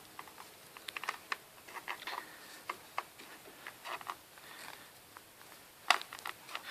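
Irregular light clicks and knocks of footsteps on a suspension bridge, one sharper knock about six seconds in.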